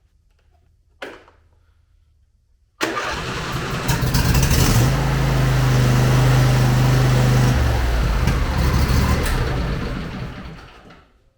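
A Husqvarna YTH22V46 riding mower's 22 hp V-twin engine cranks and catches about three seconds in, started with the air cleaner out and the intake partly covered by hand in place of a choke that isn't closing. It runs steadily for several seconds, then winds down and stops near the end. A single click comes about a second in.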